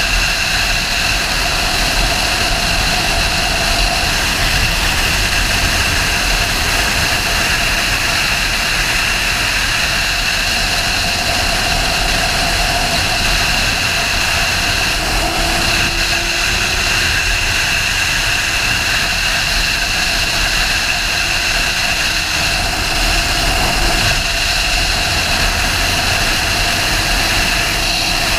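Sportbike riding at a steady speed: a constant drone of engine and wind rush that holds an even level throughout, with no sharp revs or gear changes.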